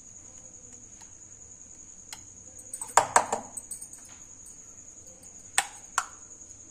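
A steel spoon knocking and clinking against a glass mixing bowl and small steel bowls while thick batter is stirred and spooned out: a quick cluster of knocks about halfway through and two sharp clinks near the end. A steady high cricket trill runs underneath.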